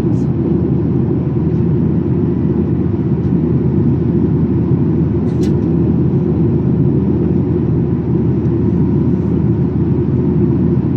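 Steady drone of a Boeing 737-800's CFM56-7B engines and rushing air, heard inside the passenger cabin in flight. A faint click about halfway through.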